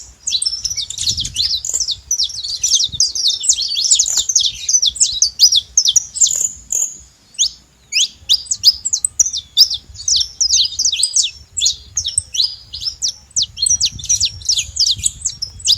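Saffron finch singing: a fast, continuous run of sharp chirps, each sweeping down in pitch, with a brief pause about seven seconds in.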